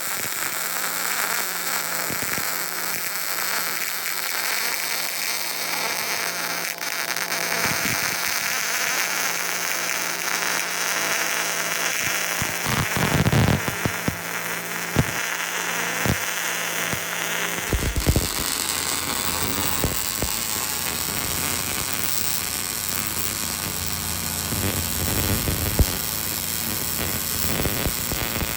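Electric welding arc crackling and hissing steadily while a weld pass is run on steel, with a few sharper pops along the way.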